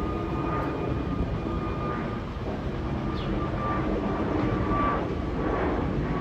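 Airbus A320neo jet airliner passing overhead: a steady jet rumble with a high engine whine held on one note, getting slightly louder in the second half.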